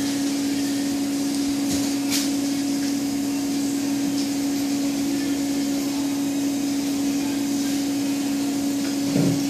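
Electric motor of workshop machinery running steadily: a constant hum over a hiss, with a faint tick about two seconds in.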